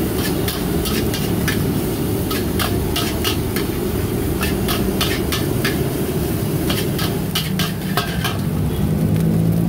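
Fried rice being stir-fried in a wok: a metal spatula clanks and scrapes against the pan several times a second over steady sizzling.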